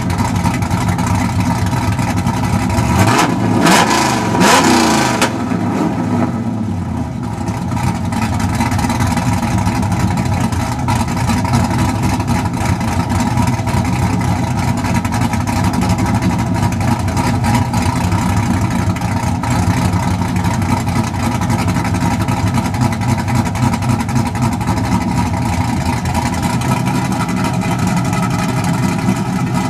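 Chevrolet Camaro SS V8 with a custom-grind Comp cam, Hooker headers and a Borla catback, idling, revved once about three seconds in and falling back to idle.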